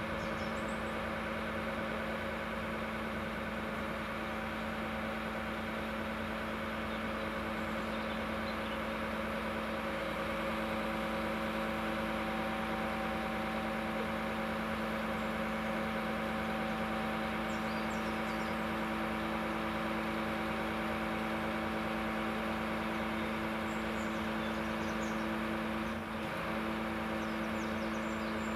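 Lorry diesel engine running steadily at a constant speed, driving the hydraulics of its truck-mounted crane as a load is lifted off the flatbed; the drone falters briefly near the end.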